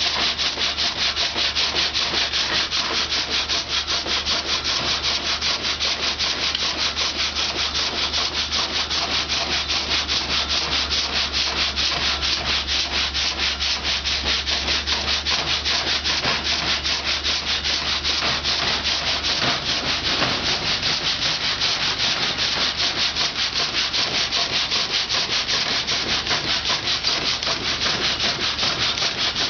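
Saw of a water-powered sawmill cutting through wood, a fast, even rasping rhythm of strokes. A low hum underneath stops about two-thirds of the way in.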